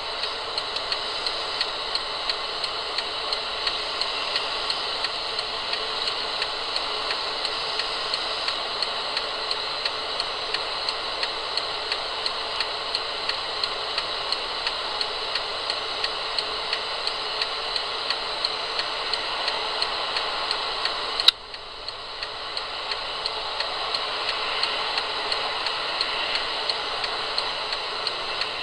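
Steady hiss with a light, regular ticking running through it. About three quarters of the way through there is a single sharp click, after which the level drops and slowly builds back up.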